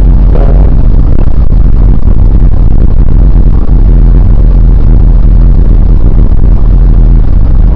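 Loud, distorted music with a heavy bass playing inside a moving car, mixed with engine and road noise.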